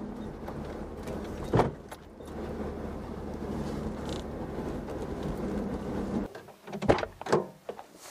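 Off-road vehicle's engine running steadily, heard from the cab, with a sharp thump about one and a half seconds in; the engine sound cuts off suddenly about six seconds in, followed by a few sharp clicks and knocks.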